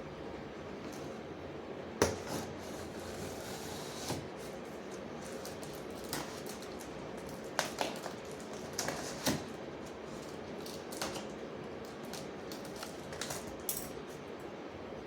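Cardboard box of a tool set being handled and opened: scattered knocks and taps, with a sharp knock about two seconds in followed by a scraping rustle, and a cluster of knocks in the middle.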